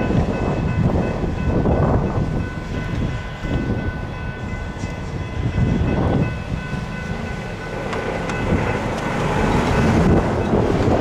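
Electronic railroad crossing bell (GS Type 3 e-bell) ringing steadily as the gates rise after the train has passed. Heavy wind buffets the microphone in gusts, louder than the bell.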